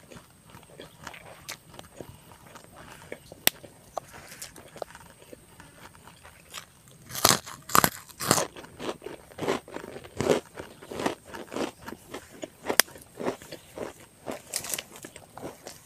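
A person biting into and chewing a crisp cracker (kerupuk) close to the microphone. Quiet small clicks give way about seven seconds in to a loud run of crunches, which carry on more softly as chewing.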